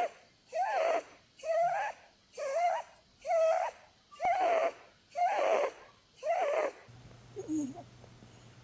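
Holland lop rabbit snoring in its sleep: a wheezy, whistling snore on each breath, a little under a second apart, about eight in a row, that stops shortly before the end. Snoring like this is typical of the breed's short, flat face.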